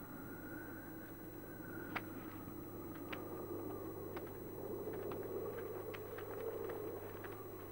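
Faint background noise of an old television soundtrack: a steady low hum with scattered clicks and crackle.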